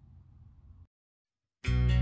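A faint low hum cuts off under a second in, followed by a moment of dead silence. Background music with guitar then starts abruptly near the end and is the loudest sound.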